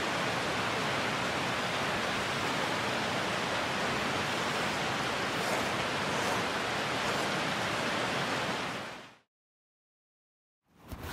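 A steady, even rushing noise that fades out about nine seconds in, followed by complete silence.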